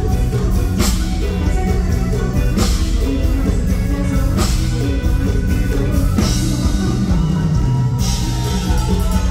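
Loud live band music of a Thai luk thung song through a stage PA: a steady drum-kit beat and bass under a woman singing into a handheld microphone.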